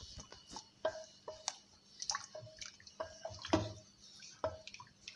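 Spoon stirring grated ginger into warm water and cream in a bowl: faint, irregular light clicks and liquid plinks, about two a second.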